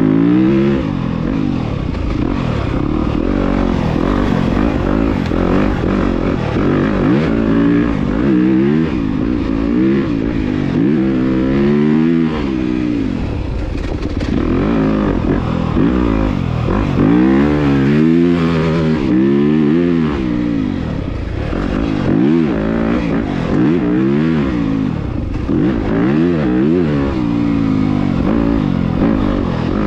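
Yamaha YZ250FX dirt bike's 250cc four-stroke single-cylinder engine under way, revving up and dropping back again and again as the throttle is worked and gears are changed.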